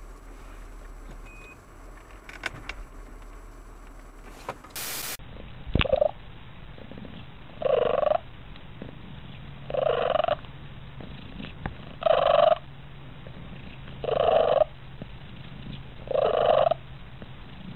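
Siamese cat giving a string of short, loud, pitched cries, one about every two seconds, starting about six seconds in. Before that there is only faint background noise, ending in a brief hiss.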